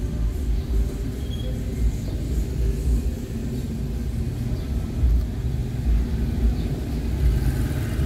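Steady low rumble of a vehicle driving slowly through town traffic: engine and road noise heard from the moving vehicle, with uneven low swells.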